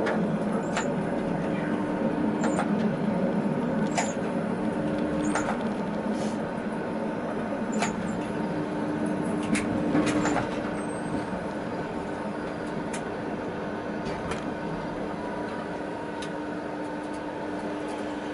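Tatra T6A5 tram heard from the driver's cab while running at speed: a steady running hum and rumble of motors and wheels on rails, with sharp clicks every second or two. The running noise eases off after about ten seconds as the tram slows.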